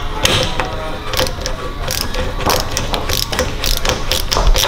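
Socket ratchet clicking in quick, uneven strokes as it turns the fork cap down into a motorcycle fork tube.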